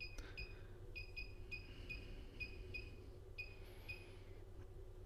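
Short, high electronic beeps, about three a second in runs with short pauses, from a FeelTech function generator as its amplitude is stepped up with the knob. A faint low hum runs underneath.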